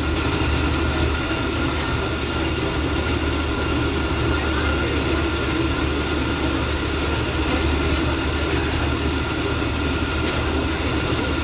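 Water-powered gristmill running and grinding: the millstones, turbine-driven shafts and belts give a steady mechanical rumble with a constant low hum while meal pours from the stones.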